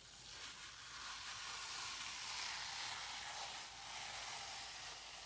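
Adhesive silk-screen transfer being peeled slowly off a T-shirt: a soft, continuous hiss of the sticky stencil pulling away from the fabric. It builds over the first couple of seconds and eases off near the end.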